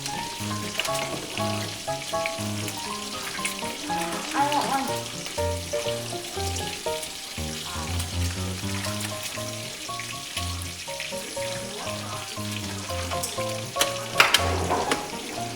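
Food frying in a pan, a steady sizzle with crackles that get louder near the end, under background music with a stepping bass line and melody.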